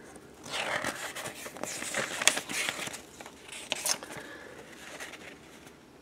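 Paper pages of a thin old paperback book rustling and crinkling as they are turned by hand, with a few sharp crackles.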